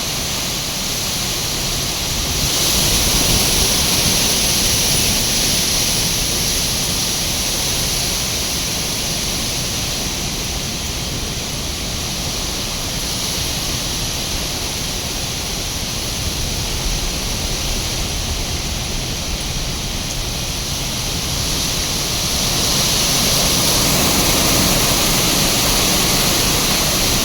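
Severe wind storm with gusts near 90 mph: a steady rushing noise that swells about two seconds in and again near the end.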